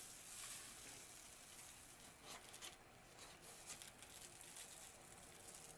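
Faint, intermittent rustle of a sheet of paper being peeled off a paint-covered gelli printing plate.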